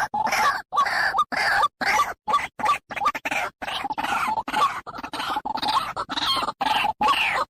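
White-breasted waterhen (dahuk) calling: a steady, rapid series of repeated calls, about two or three a second, each note falling in pitch.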